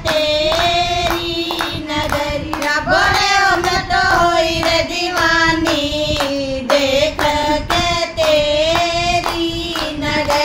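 Group of women singing a Hindi devotional bhajan to Shiva together, with steady hand-clapping on the beat, about two claps a second.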